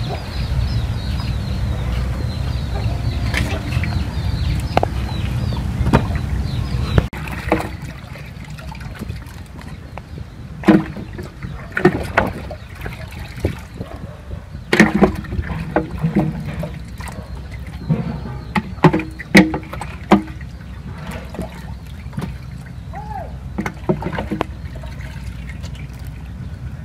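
Water splashing, sloshing and dripping as live fish are scooped out of a holding tank with a plastic pot, in a series of sharp, separate splashes. A steady low rumble under the first several seconds cuts off suddenly.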